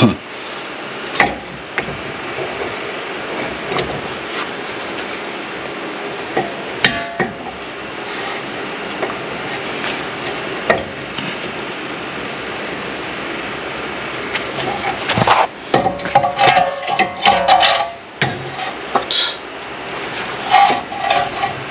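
Metal clicks and knocks from a single-piston brake caliper being handled and worked over the bracket and new pads. Past the middle comes a few seconds of busier clattering and scraping, over a steady hiss.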